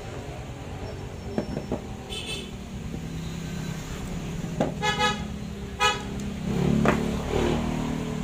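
Vehicle horn toots: a faint short one about two seconds in, then two clear beeps about a second apart in the middle, over a steady low rumble that swells near the end. Small clicks of parts being handled on a workbench.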